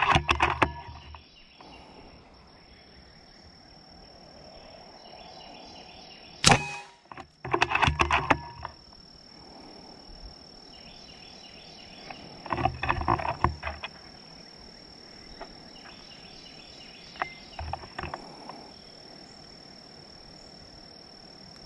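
One shot from an Air Venturi Avenger .25 PCP air rifle about six and a half seconds in, a single sharp crack. Between shots come several short bursts of clicking and rattling from handling the rifle.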